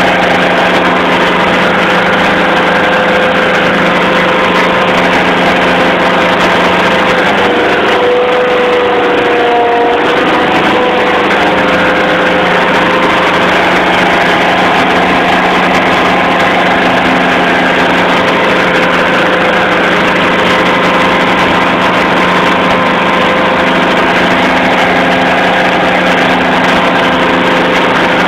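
Fishing boat's engine running loudly and steadily, with a brief slight dip in pitch about eight to ten seconds in.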